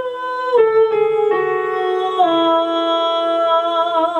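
A woman singing a vocal exercise on sustained open vowels with vibrato, stepping down in pitch three times, with keyboard notes held beneath: a demonstration of linking head voice back down to chest voice.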